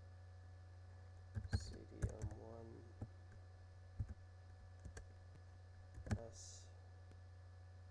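Computer keyboard keystrokes: a quick run of key presses about a second and a half in, then single clicks about once a second, and another pair of presses near the end, over a steady low hum.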